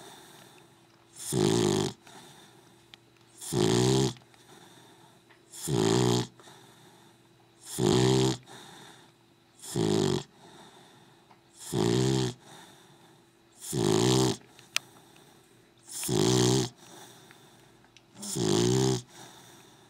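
A sleeping dog snoring in a steady rhythm: nine rasping snores, each under a second long, about one every two seconds.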